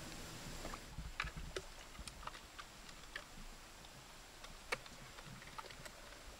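Faint, irregular clicks and ticks of hands handling a small fishing hook line and bait, with one sharper click about three-quarters of the way through.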